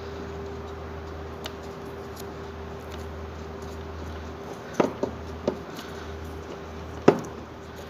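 Small sharp clicks and taps of wire terminals and connectors being handled and pushed onto a power window motor's leads. There is a cluster of clicks about five seconds in and a louder one near the end, over a steady low hum.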